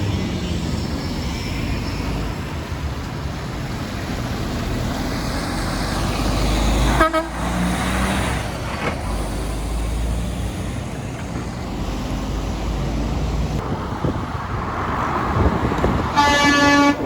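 Garbage truck diesel engines running, with a short horn toot about seven seconds in and then a loud, long truck horn blast starting near the end.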